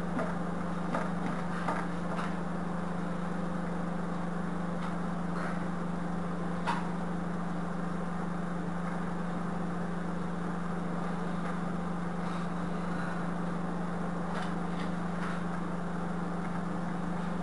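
A steady low hum with a few faint, light knocks as a wooden block presses silicone sealant into a small mold.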